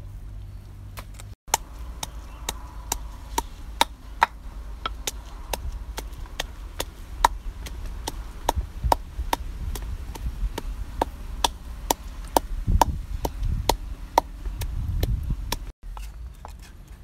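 Wooden pestle pounding garlic cloves and red chilies in a terracotta mortar: a steady run of sharp knocks, about two a second.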